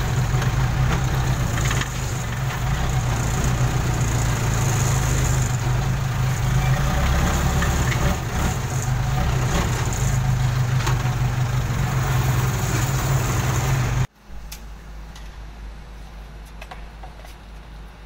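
Case backhoe loader's diesel engine running steadily, heard from the operator's seat as the machine moves. About 14 seconds in, the sound cuts abruptly to a quieter, lower engine hum.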